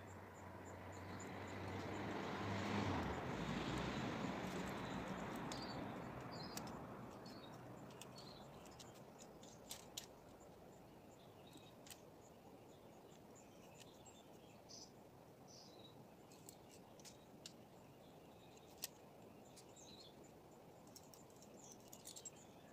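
Outdoor ambience: a rushing swell that builds for about three seconds and fades over the next few, then a faint background with scattered bird chirps and a few sharp clicks.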